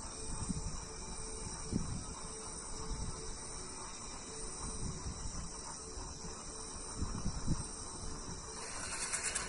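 Night insects, crickets, chirping in a steady high chorus, with low irregular rumbles of wind or handling on a phone microphone. Near the end a louder hissing noise swells in.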